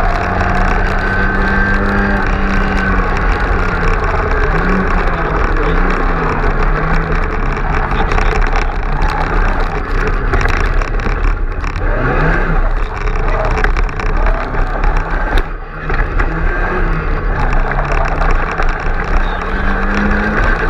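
Mk2 Ford Escort rally car's engine at speed, heard from inside the cabin, its revs rising and falling over and over as it is driven hard. About fifteen seconds in the engine note briefly drops away, then picks up again.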